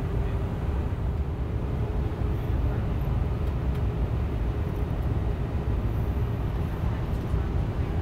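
Steady cabin noise inside an Airbus A319 airliner during descent: a low rumble of engine and airflow with a faint steady hum, unchanging throughout.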